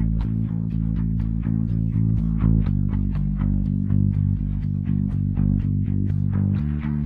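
Isolated bass guitar track: a steady run of evenly repeated plucked notes, moving to a new note about two and a half seconds in and again near the end.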